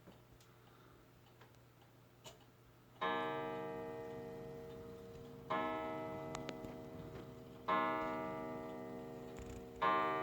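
Junghans wall clock striking: four slow, evenly spaced strokes about two seconds apart, starting about three seconds in, each ringing out and dying away before the next.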